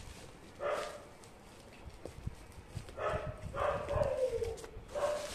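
Animal calls: a short pitched call about half a second in, a run of calls about three seconds in ending in a longer one that falls in pitch, and another short call near the end. Low knocks of plastic packaging being handled run underneath.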